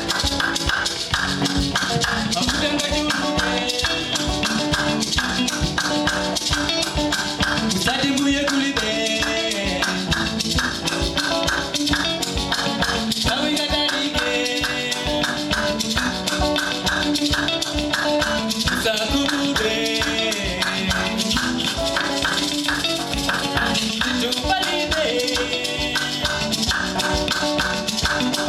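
Malawian band music with a fast, steady beat and a moving melody.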